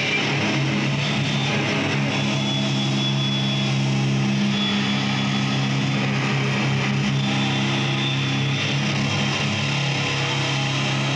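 A live death metal band's distorted electric guitars and bass holding low droning chords at a steady level through the club PA, the chord shifting about eight seconds in.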